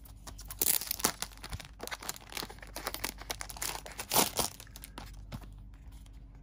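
Clear plastic shrink wrap crinkling and crackling as it is peeled off a Blu-ray case, with the loudest crackles about half a second in and again around four seconds, dying down near the end.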